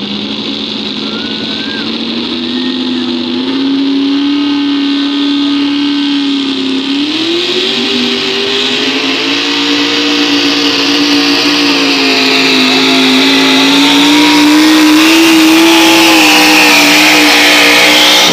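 Pulling tractor's engine at full throttle under load, dragging a weight-transfer sled down the track. It grows steadily louder as it approaches, and its pitch climbs in a step about seven seconds in.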